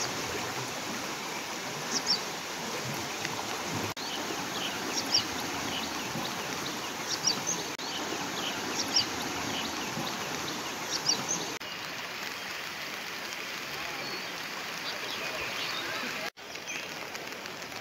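Steady rushing of fast-flowing floodwater, with brief high chirps scattered through and a short dropout near the end.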